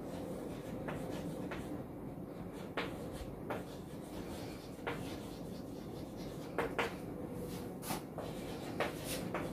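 Chalk writing on a blackboard: a string of sharp taps and short scratchy strokes as letters are chalked, over a steady low room hum.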